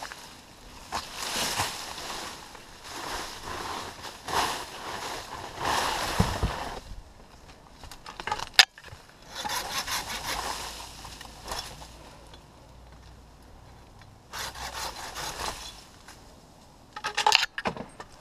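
Dry oak leaves and branches rustling and scraping close to the camera, in a run of irregular bursts through the first seven seconds and again in shorter spells later. There is one sharp click about eight and a half seconds in.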